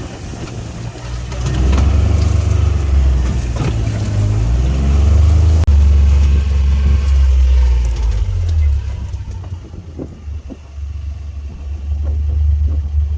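Engine of a Gator side-by-side utility vehicle being driven, revving up and down. It eases off about nine seconds in, with a few knocks, then picks up again near the end.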